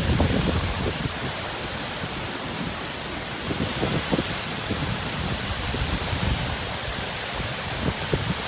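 Typhoon wind and rain: a steady rushing noise, with irregular gusts buffeting the microphone.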